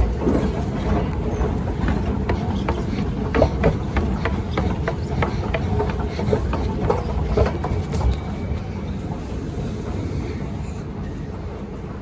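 Steady low rumble of a Singapore MRT train or station, with a rapid string of sharp clicks through the middle.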